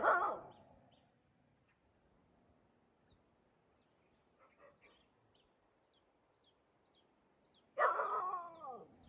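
A dog barking: a sharp bark right at the start, then a drawn-out bark that falls in pitch about eight seconds in. Faint high chirps repeat about twice a second in between.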